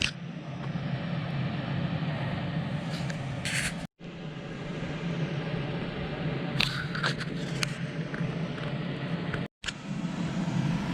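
Scraping and clattering handling noises over a steady low hum, broken twice by abrupt cuts.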